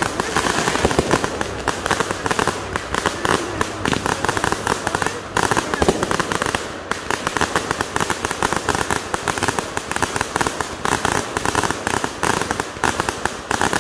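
Consumer fireworks going off: a dense, rapid crackling and popping of many small reports with no letup, from ground fountains and aerial bursts with crackling stars.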